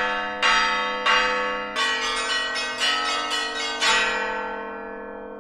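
Church bells struck in a short peal: a few spaced strikes, then a quicker run of them, then a last strong strike about four seconds in that rings on and slowly fades.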